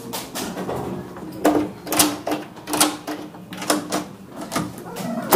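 Metal clicks and knocks of a front door's thumb-turn lock and lever handle being worked as the door is unlocked and opened, several sharp clicks with a louder knock at the end.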